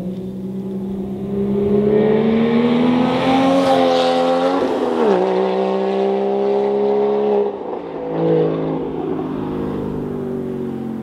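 Porsche 987.2 Boxster's flat-six running through a SOUL Performance valved street exhaust with the valves closed. The engine note rises under acceleration, drops sharply about five seconds in as it shifts up, then holds a steady rumble.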